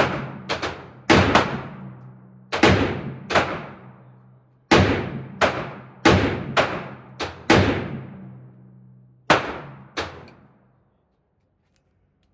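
Aero Precision M5 AR-10 rifle firing .308 Winchester: about fifteen shots in uneven groups, some coming in quick succession, each with a long echoing tail. The shooting stops near the end.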